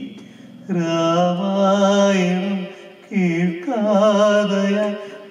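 A man singing solo into a handheld microphone with no accompaniment: two long held phrases, the first starting just under a second in and the second about three seconds in, with a short breath-gap between them.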